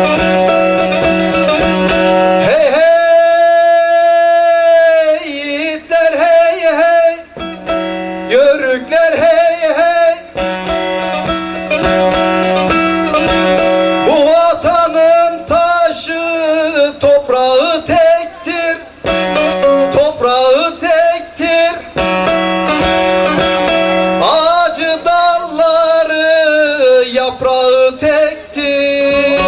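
Turkish folk song played on a plucked bağlama (saz) over a steady drone note, with long, wavering sung notes rising over it at several points.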